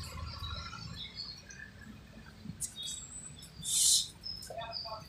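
Birds chirping in short scattered calls over a low rumble, with one short loud hiss about four seconds in.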